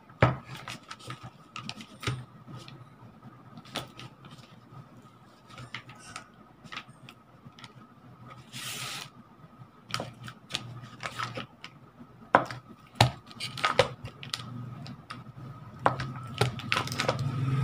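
Knife blade slicing cold butter and tapping on a wooden cutting board: irregular light clicks and knocks. The butter's paper wrapper rustles briefly about nine seconds in, and a faint steady whine runs underneath.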